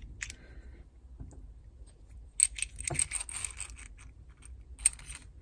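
Brass compression coupling for multilayer pipe being handled and its nut threaded on: light metallic clinks and rattles, thickest about two and a half seconds in, with a single sharp click near the end.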